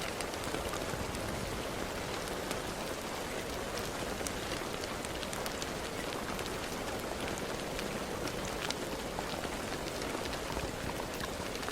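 Steady rain falling and pattering on a surface, a constant even hiss dotted with many small drop ticks.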